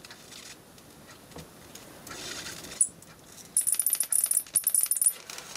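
High-voltage arc from a flyback transformer crackling on the insulated red high-voltage lead. It is faint at first, with one sharp snap a little under three seconds in, then becomes a loud, high-pitched sizzling crackle in rapid bursts from about three and a half seconds in.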